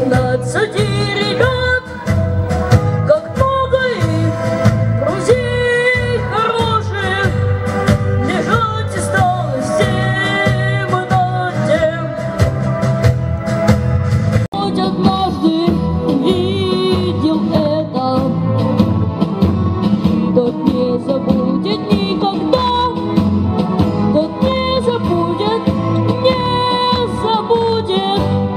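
A boy singing a Russian soldier's song into a microphone over an instrumental backing track, heard through the stage sound system. The music jumps abruptly about halfway through.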